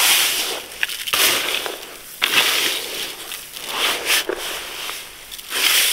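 Hands kneading and mashing a large batch of chhena (fresh cheese curd) mixed with sugar and semolina, a gritty scraping noise in strokes every second or so.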